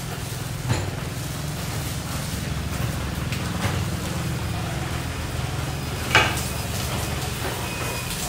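Kitchen work sounds: a few short clinks and knocks of metal utensils and dishes, the loudest about six seconds in, over a steady low hum.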